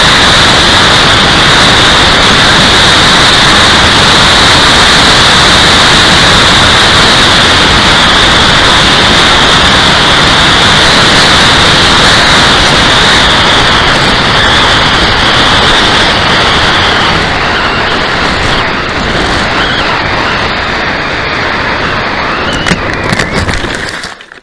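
RC P-51D Mustang model heard from its onboard camera: heavy wind rush over the microphone with the steady high whine of its brushless electric motor and propeller at flying speed. About seventeen seconds in the whine stops as the throttle is cut for landing, leaving quieter air noise and a few scrapes and rattles as the model comes down into the grass, then the sound cuts off.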